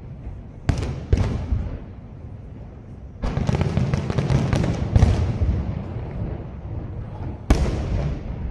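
Aerial firework shells exploding: two bangs about a second in, then a dense run of rapid bursts and crackling, and another loud bang near the end. Each bang rolls off over a second or so.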